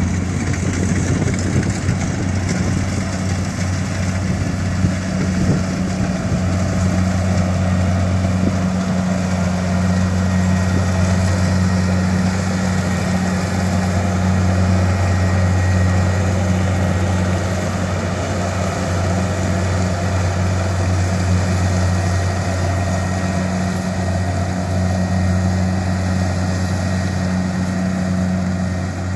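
Kubota rice combine harvester running steadily while it cuts and threshes standing rice: a constant low engine drone with the machine's mechanical noise over it.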